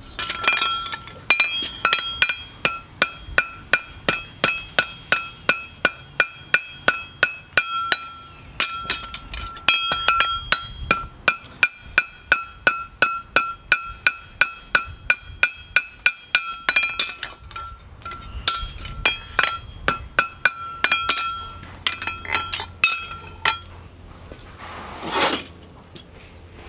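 Farrier's hammer striking steel in steady runs of about three ringing blows a second, each with a clear metallic ring. The runs pause briefly twice and become irregular before stopping, and a single short whoosh swells and fades near the end.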